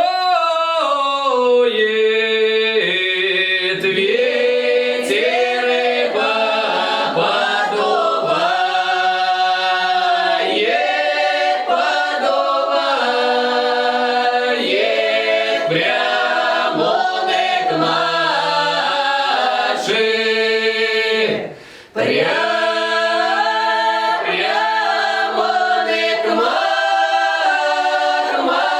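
Folk ensemble singing a Russian lyrical village song a cappella in several voices, in long drawn-out phrases. The singing breaks off briefly about three quarters of the way through, then the voices come back in together.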